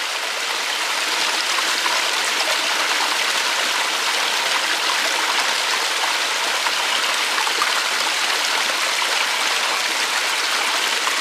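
Small woodland stream pouring over a log in a little cascade and splashing steadily into a shallow pool.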